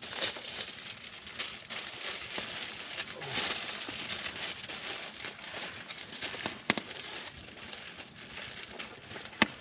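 Wood campfire crackling, with a steady patter of small clicks and two sharp pops in the second half.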